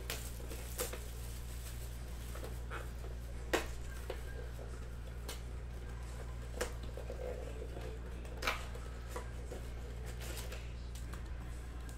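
Shrink-wrapped cardboard trading-card boxes being torn open by hand: plastic wrap crinkling and cardboard ripping in scattered sharp rustles, the loudest about three and a half seconds in, over a steady low hum.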